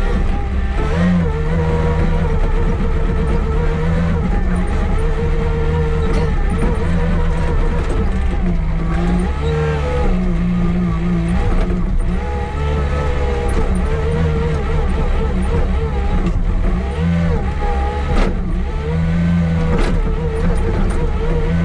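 Compact wheel loader's diesel engine running steadily under load while clearing snow, its pitch rising and falling every second or two as the revs change.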